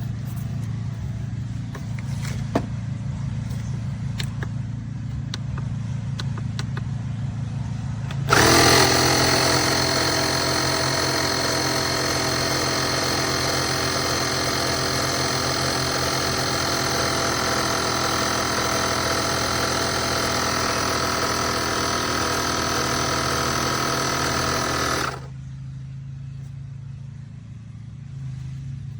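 Oasser portable 12 V air compressor switching on about eight seconds in, running loudly and evenly for about seventeen seconds, then cutting off suddenly. A low steady hum continues underneath throughout.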